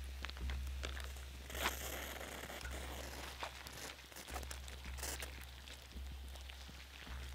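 Wood campfire crackling, with scattered sharp pops and clicks, and a short rustling scrape about a second and a half in.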